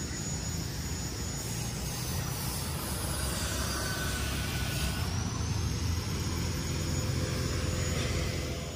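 Steady low outdoor rumble, with a hiss that swells a few seconds in and fades again.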